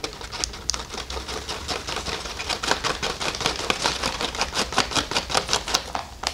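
Plastic bag of slaked lime crinkling and crackling as the powder is shaken out of it into a plastic container: a fast, irregular run of sharp crackles that thins out near the end.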